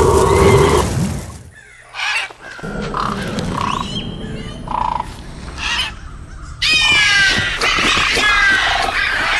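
Crows cawing as an added sound effect, a run of repeated harsh calls starting near the end. A steady electronic tone cuts off about a second in, and a few short tone blips come in the middle.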